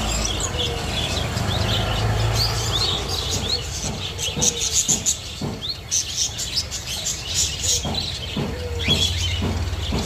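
Small cage finches chirping and calling in many short, quick notes, with a few soft low knocks partway through.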